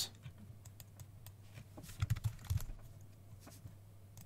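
Faint computer keyboard typing: scattered single key clicks, with a short run of louder, deeper knocks about two seconds in, over a low steady hum.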